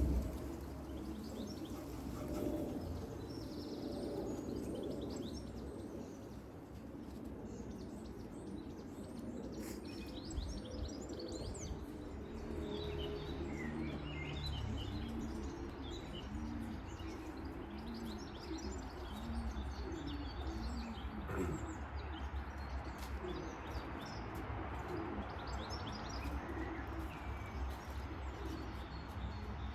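Small songbirds chirping and singing throughout, with pigeons cooing, a run of low repeated coos about halfway through.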